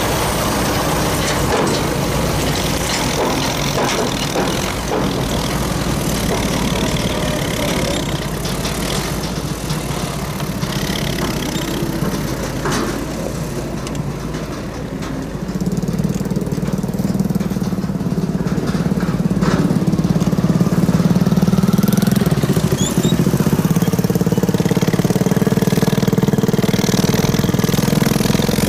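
Tractor diesel engine running steadily. From about halfway it gets louder with a strong steady hum as a Belarus 825 tractor's diesel pulls a disc plough under load.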